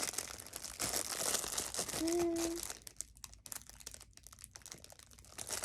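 Packaging crinkling and tearing as it is opened by hand, busy for the first half, then a few light rustles and clicks.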